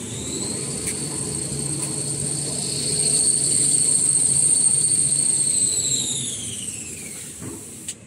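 Kitchen towel paper rewinding and embossing machine running: a high motor whine climbs in the first second, holds steady, then glides down and fades over about two seconds near the end, over a steady low hum.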